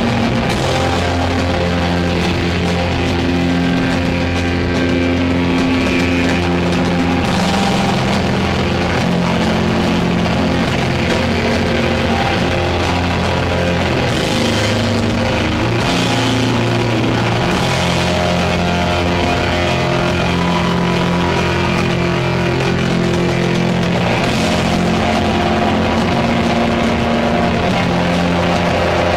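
Heavy metal band playing live and loud: a distorted Les Paul electric guitar and bass riff in sustained low notes that shift every second or two, over pounding drums with cymbal crashes now and then.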